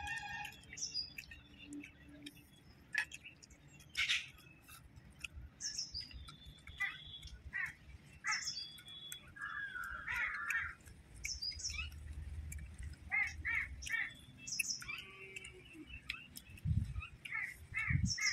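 Birds calling: a short high falling call repeated every couple of seconds, with other chirps and a run of quicker repeated notes near the end. Scattered soft clicks and taps, the sharpest about four seconds in.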